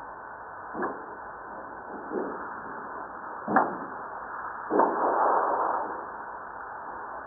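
Seismic recording of Fuego volcano played as sound, sped up 150 times: a steady hiss of background ground motion broken by four sharp knocks. The loudest comes about halfway through, and the last is followed by a rumble lasting about a second.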